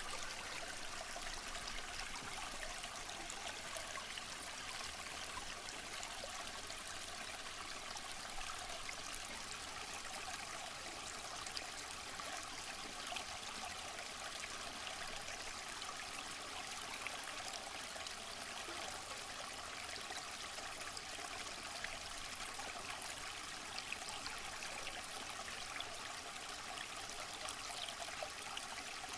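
Waterfall: a steady, unbroken rush of falling water, an even hiss with occasional small splashes.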